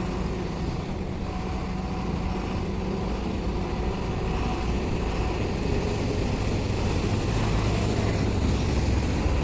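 Tipper truck's diesel engine running as the truck drives, a steady low drone. Its pitch settles lower about halfway through, and it gets slightly louder towards the end.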